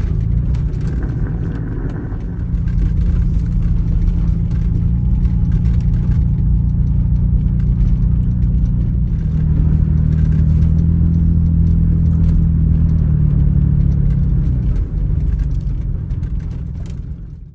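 Vehicle driving: a steady low engine drone with road rumble, growing louder about two and a half seconds in and fading out near the end.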